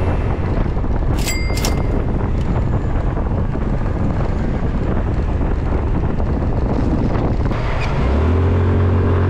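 Motor scooter riding through city streets: steady wind rush on the microphone over low road and engine rumble, with a short high ring about a second in. About eight seconds in, as the scooter comes to a stop, a steady engine hum with a clear pitch comes to the fore.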